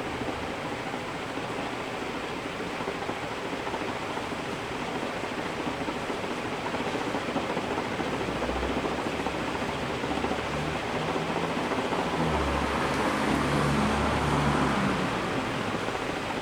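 56-inch Canarm industrial ceiling fan running on high: a steady rush of air with a faint low hum, slowly getting louder as it comes up to speed.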